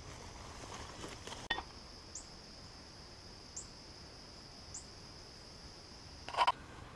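Steady high drone of insects in woodland, with three short high chirps over it and a brief louder noise near the end. In the first second and a half, faint rustling steps through leaf litter.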